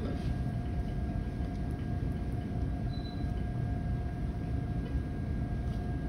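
Steady hum of running medical equipment: a low rumble with a faint constant tone, and a short faint high beep about three seconds in.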